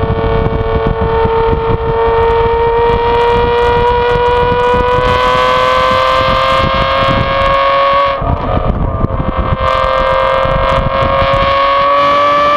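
The 5.9-litre V12 of a modified 2014 Aston Martin V12 Vantage S, heard at the exhaust, pulling under load with the revs climbing slowly. About eight seconds in the note breaks briefly with a few crackles as it shifts up, then it resumes a little lower and climbs again. Wind buffets the microphone throughout.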